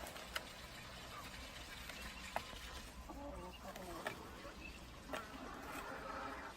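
Faint bird-like calls, a few short pitched bursts, with several soft clicks over low background noise.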